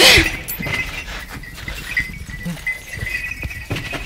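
A sudden loud cry at the start, falling in pitch, followed by a thin, steady high tone that comes and goes, with a few soft knocks.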